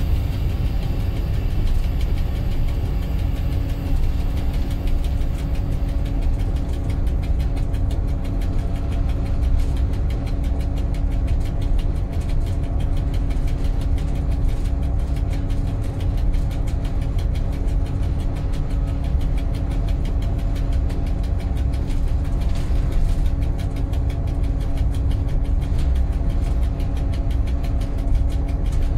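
M62 diesel locomotive's two-stroke V12 diesel engine running steadily, heard from inside the driver's cab, a deep drone with a held hum over it.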